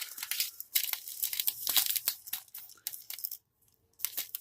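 Plastic crinkling in irregular bursts as small bags of diamond-painting drills are handled, with a short pause near the end.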